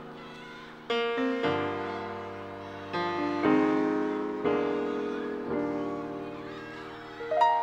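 Piano playing the slow opening chords of a ballad's intro, each chord struck and left to ring and fade, roughly every one to one and a half seconds.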